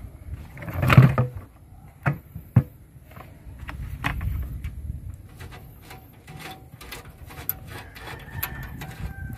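Handling noise of a plastic funnel and oil catch jug being set in place under an excavator's oil pan: a loud knock about a second in, two sharp clicks shortly after, then light taps and scrapes.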